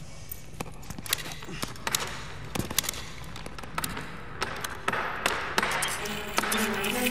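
Film sound effects of small robotic spiders skittering: many quick metallic taps and clicks that grow denser toward the end, over background music that settles into held notes near the end.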